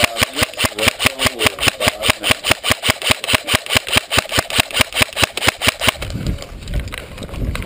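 Airsoft rifle firing a long, steady string of shots, about six a second, that stops about six seconds in. A low rumble follows.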